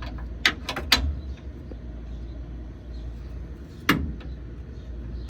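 Hand tools being handled: sharp metal clicks and clanks about half a second and one second in, and a louder clank near four seconds in, over a low steady hum.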